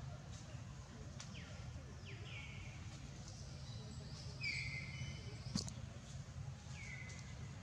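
Four short high-pitched animal calls, each dropping in pitch and then holding briefly, the loudest about four and a half seconds in, over a steady low hum; a sharp click about five and a half seconds in.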